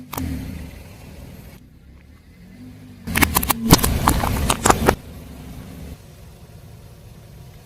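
A car tyre rolling over and crushing crunchy objects: a dense burst of cracking and snapping for about two seconds, starting about three seconds in, over the low rumble of the car.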